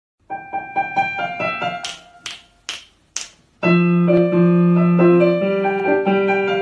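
Intro music on keyboard: a quick run of short plucked notes, four sharp clicks, then held chords that change pitch a few times.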